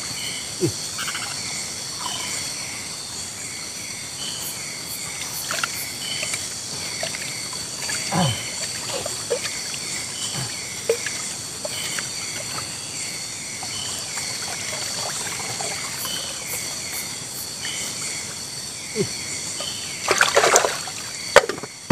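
Forest ambience: a steady high insect drone with a short chirping call repeating about twice a second. Occasional light splashes and water dribbling, with a louder splash about 20 seconds in.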